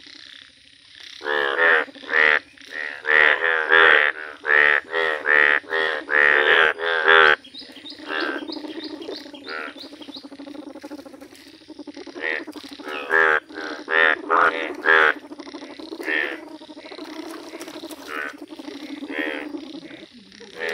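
Breeding chorus of male Indian bullfrogs calling: loud, pulsing croaks in quick succession for the first seven seconds or so, then a steadier background chorus with scattered louder calls.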